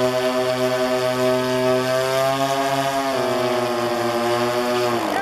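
The giant-scale B-24 model's DLE-20 two-stroke gas engines running steadily on the test stand, throttled down to a lower speed about three seconds in, then shut off near the end, the pitch falling fast as they spin down.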